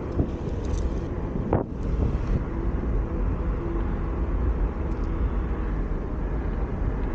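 Onewheel Pint on a Craft & Ride Burris tyre rolling along asphalt: steady low rumble with wind buffeting the microphone, and a faint steady whine from the hub motor.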